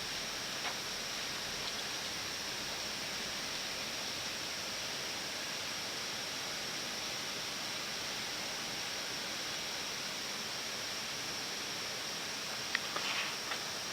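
Steady hiss of flight-deck background noise in an Airbus A320-family cockpit while taxiing after landing, with a few short clicks near the end.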